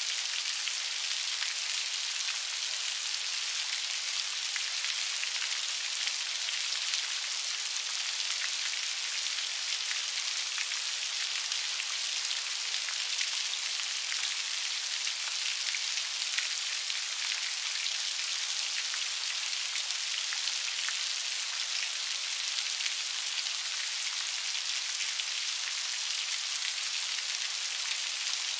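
Steady rain falling: an even hiss of countless drops with many small, sharp drop ticks scattered through it, holding a constant level throughout.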